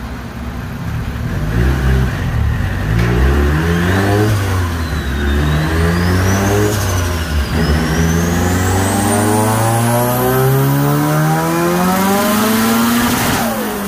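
Turbocharged Mitsubishi Lancer's 4G15 MIVEC four-cylinder engine on a baseline dyno pull. It revs up and down several times in the first few seconds, then makes one long wide-open-throttle pull, its pitch climbing steadily with a high turbo whistle rising alongside, and drops off sharply near the end as the throttle is lifted.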